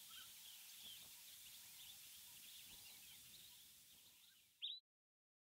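Faint outdoor nature ambience with many quick, high chirps from small birds or insects, slowly fading; one brief louder chirp comes near the end, then the sound cuts off suddenly.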